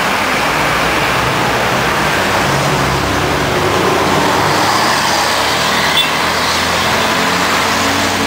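City street traffic: a steady, loud rush of car engines and tyres, with a car passing close by.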